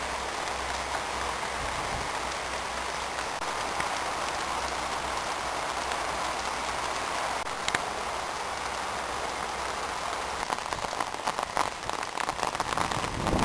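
Steady rain falling, an even hiss of drops with a denser, more uneven patter in the last few seconds.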